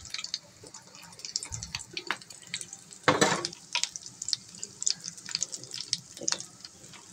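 Hot oil in a deep-frying pan sizzling and crackling with many small pops as fried breaded sandwich pieces drip and drain on a wire skimmer above it. A louder burst comes about three seconds in.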